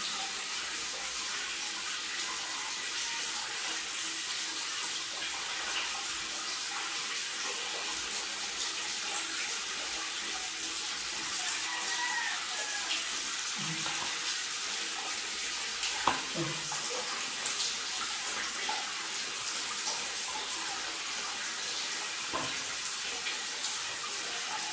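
Water running steadily, with a few soft knocks and splashes.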